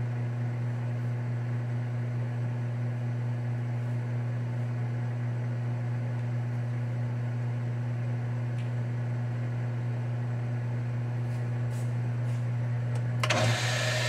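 Manual lathe running, a steady low hum from its motor and spindle. A louder rushing noise starts about a second before the end.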